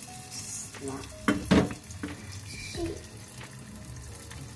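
Hot oil hissing and sizzling steadily in a pot as lumps of donut dough are snipped from a piping bag into it. A few loud, sharp clicks come about a second and a half in.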